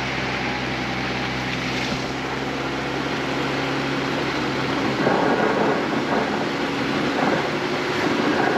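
Recovery vehicle's engine running with a steady hum under a rushing noise. About five seconds in, the rushing noise grows louder.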